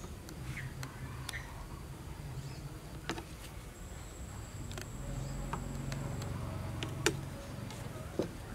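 Scattered light clicks and taps of a metal knife and fork touching the plate and the firm jelly dessert, about eight in all, the sharpest about seven seconds in. Under them runs a faint steady low hum and a thin, steady high whine.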